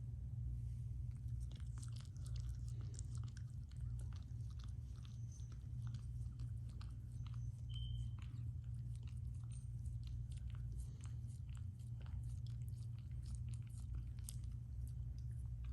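A dog chewing and crunching food, with many short, irregular crunches, over a steady low hum.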